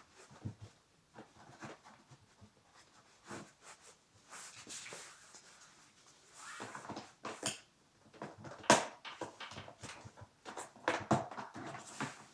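Irregular knocks, clicks and short rustles of things being handled, with no engine running; the sharpest knock comes a little before the end.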